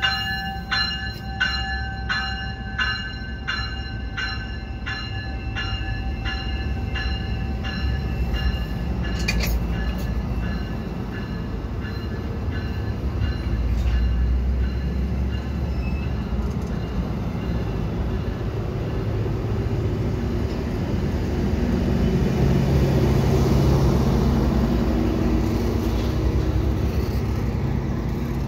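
A warning bell rings about twice a second and fades out after about eight seconds. Then a commuter train of Bombardier multilevel coaches rolls past close by with a steady rumble of wheels on rail. Near the end the EMD F59PHI diesel locomotive pushing at the rear comes past and its engine grows louder.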